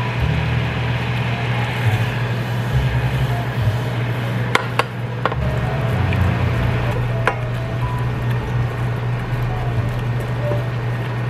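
Sugar syrup bubbling at the boil in a stainless steel saucepan, with a few sharp clicks of a utensil against the pan around the middle, over background music with a stepping bass line.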